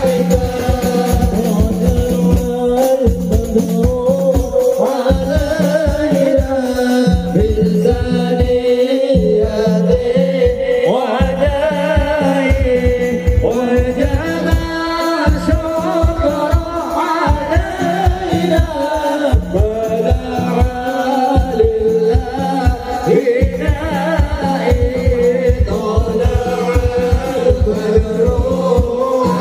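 A group of voices singing a devotional sholawat chant together, to a fast, steady hand-drum beat, as in the standing (mahallul qiyam) section of a Maulid recitation.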